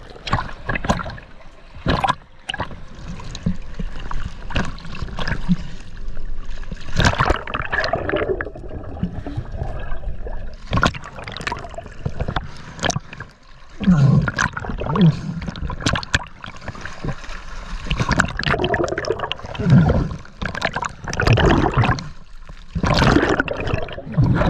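Choppy sea water splashing and sloshing around a camera held at the surface, with gurgling each time it dips under.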